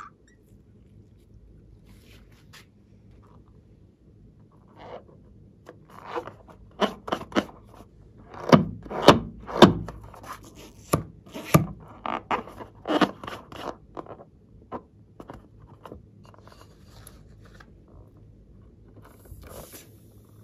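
A filled rubber balloon being handled and squeezed in the hands. Its rubber squeaks and rubs against the skin in a run of sharp squeaks, loudest over several seconds in the middle.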